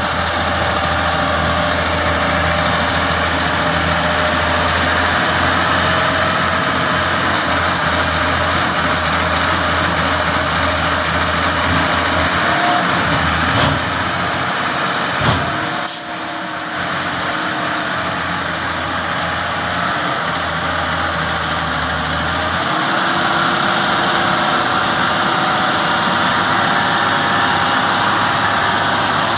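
Foton dump truck's diesel engine running steadily as it drives along a slippery mud road. The engine's deep note eases off for a while past the middle, with a short sharp sound about halfway through.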